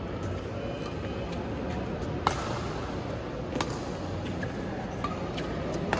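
Badminton rackets striking the shuttlecock during a rally: a few sharp cracks a second or more apart, the loudest a little after two seconds in, over steady low background noise.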